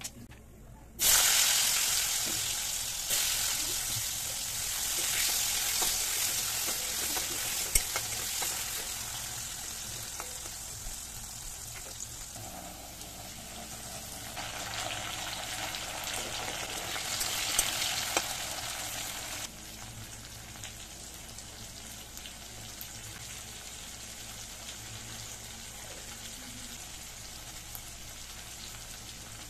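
Potato chunks frying in hot oil with fennel and cumin seeds, sizzling. A loud burst of sizzling starts suddenly about a second in and slowly fades, swells again in the middle, then drops abruptly to a quieter, steady sizzle for the rest.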